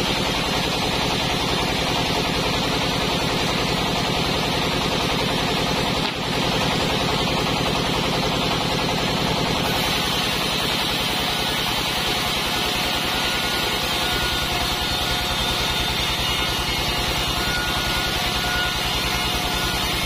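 Band sawmill running and sawing a log of Mindi wood into a board: a loud, steady machine noise with a fast, even pulsing. A faint high whine comes in past the middle.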